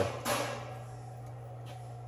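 Quiet room tone: a steady low hum with faint background noise, and no tool running.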